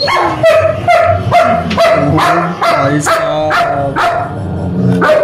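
German Shepherd growling and barking over its food bowl in a rapid run of short, loud snarling barks, about two or three a second. This is food guarding: a warning to the owner who is reaching for its food.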